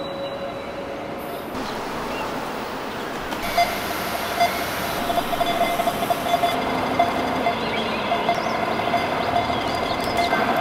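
Steady city street ambience: a constant rush of distant traffic with a sustained hum that comes in a few seconds in, and a few faint high chirps over it.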